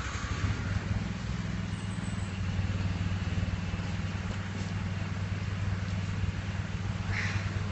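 A steady low machine hum with a faint hiss over it, and one brief higher sound near the end.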